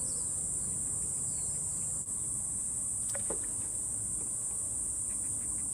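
Insects calling in a steady, unbroken high-pitched drone, with a brief chirp about three seconds in.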